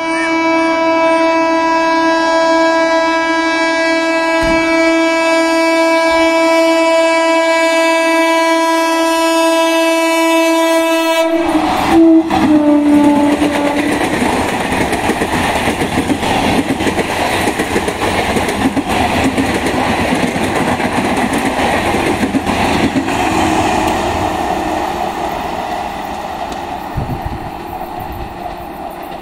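12-coach Indian Railways EMU electric local train sounding one long, steady horn blast as it approaches at speed, running through the station without stopping. About eleven seconds in it rushes past close by, the horn dropping in pitch, and the rest is the rush and clatter of the coaches' wheels on the rails, slowly fading near the end.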